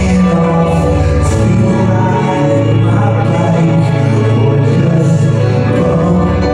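Live band music: held bass notes shifting every second or two under layered tones, with singing.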